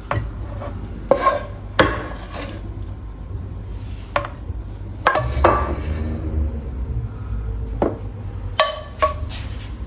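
Dishes and utensils knocking and clinking in kitchen work, about eight separate sharp clinks, some ringing briefly, over a steady low hum.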